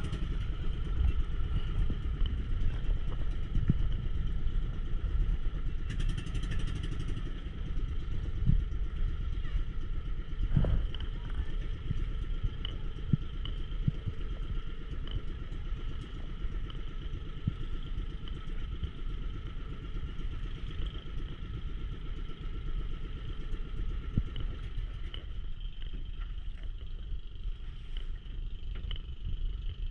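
Small engine of an outrigger pump boat running steadily at low speed. It eases a little in the last few seconds.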